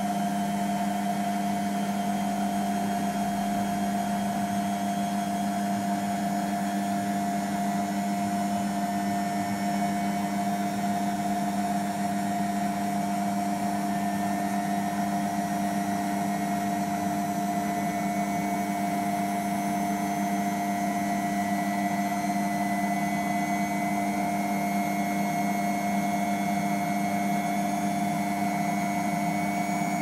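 Beko WMP511 washing machine in its final spin (800 rpm), the drum turning at a steady high speed with a constant motor hum and whine. A faint high whine creeps slowly up in pitch over the second half.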